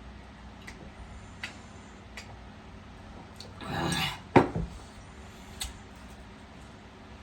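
Eating utensil on a dish: a few faint clicks, a short scrape about halfway through, then one sharp clink.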